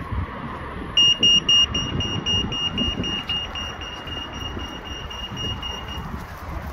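Puffin crossing's audible pedestrian signal beeping rapidly: a high-pitched pulsed beep that starts about a second in and stops near the end, signalling that it is safe to cross. The first few beeps are the loudest, over a background of wind and passing traffic.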